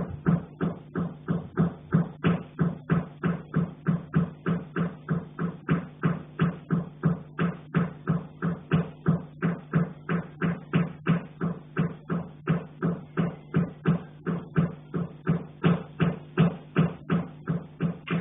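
Steady, even knocking on a pipe, about two to three knocks a second, each knock with a low metallic ring. It carries through the building's pipework, and the uploader takes it for someone in the attic banging on the pipe.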